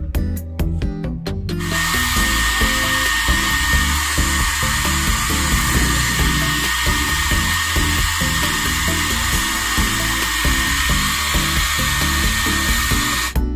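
Handheld hair dryer blowing steadily with a thin high whine, switched on about a second and a half in and off just before the end, heating vinyl wrap to soften it around a table edge. Background music plays underneath.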